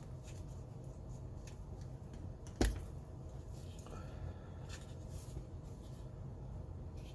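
Faint handling noises of model parts, small clicks and rustles over a low hum, with one sharp knock about two and a half seconds in.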